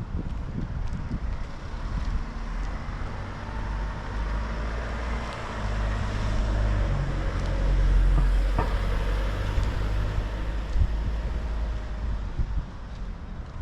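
A car driving past close by, its engine and tyre noise growing louder to a peak about eight seconds in and then fading away.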